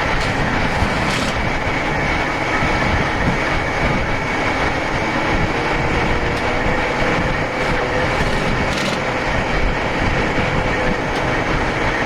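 Heavy diesel machinery running steadily at a constant pace, with a steady high whine over the engine noise.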